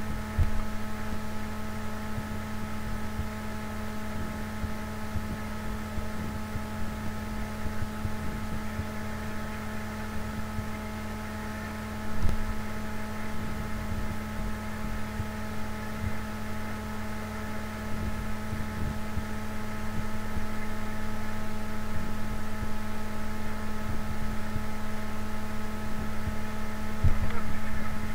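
Steady cabin hum of a Japanese superconducting maglev train cruising at about 500 km/h: several fixed tones over a low rumble. A brief bump about twelve seconds in and another near the end.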